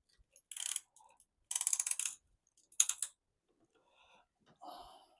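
Ratchet-type piston ring compressor being tightened around a piston, squeezing the new rings into their grooves: three short bursts of rapid ratchet clicks.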